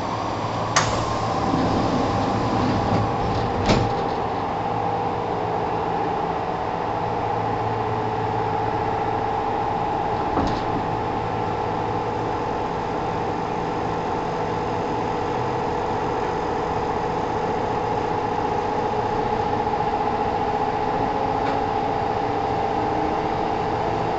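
Inside a Kintetsu 1000 series electric train: the steady hum of the train's equipment, with a few sharp knocks in the first four seconds and a tone that begins to rise near the end.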